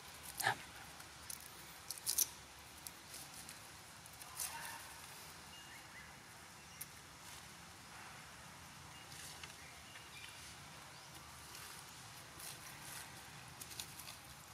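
Dry leaves crackling and rustling as macaques move over leaf-strewn stone, with scattered sharp clicks, the loudest about half a second and two seconds in.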